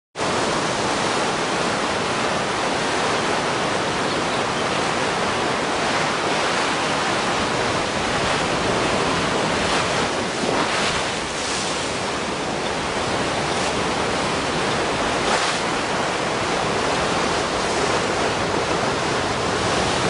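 Tsunami surge of seawater pouring over a seawall and across a road: a steady, loud rush of churning water, with a few brief louder surges around the middle.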